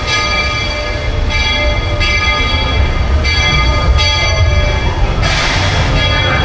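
Walt Disney World Railroad steam locomotive's bell ringing repeatedly, about once a second, with a burst of steam hiss near the end.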